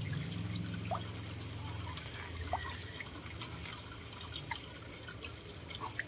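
Pond water dripping and splashing lightly as a red-breasted parakeet dips its head in to bathe: scattered small plinks and drips, over a faint low hum in the first half.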